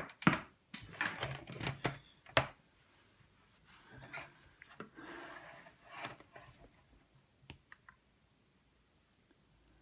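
Plastic clicks and knocks of mains plugs, cables and a wall dimmer switch plate being handled and unplugged, sharpest in the first two and a half seconds. Softer scraping and rustling follows, with a few light ticks near the end.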